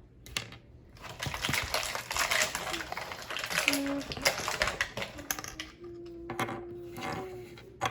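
Quick clicking and rattling of small plastic toy parts being handled and fitted together, busiest in the first half.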